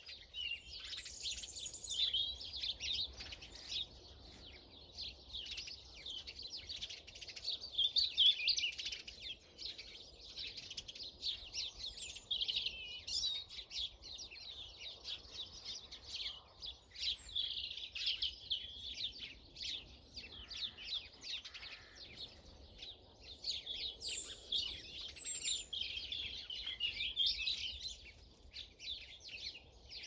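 A mix of small garden birds (tits, house sparrows and finches) chattering and chirping together, many short high calls overlapping without a break, in louder flurries now and then.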